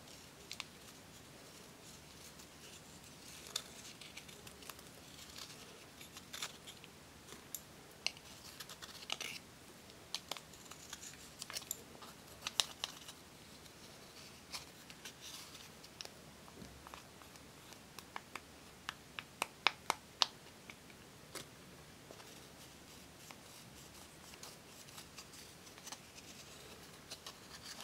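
Pressed eyeshadow being scraped and crumbled out of a plastic palette pan with a thin metal spatula: dry scratching with crisp, irregular ticks, including a quick run of louder clicks about two-thirds of the way through.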